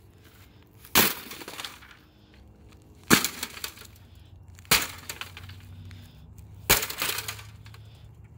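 Sledgehammer smashing into an LED TV, four blows about two seconds apart, each followed by a brief crackle of breaking pieces.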